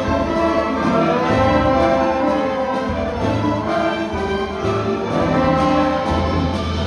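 Orchestra playing live, bowed strings with cellos and double basses carrying sustained chords over a pulsing low line.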